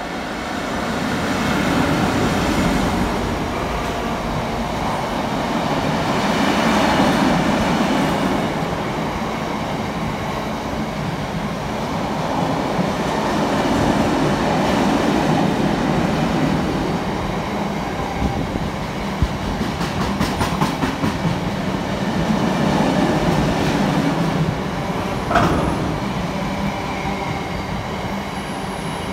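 A Class 60 diesel locomotive going by, followed by a long freight train of bogie oil tank wagons rolling past with a steady, rising-and-falling rumble and clicks of wheels over rail joints. Near the end there is a brief squeal.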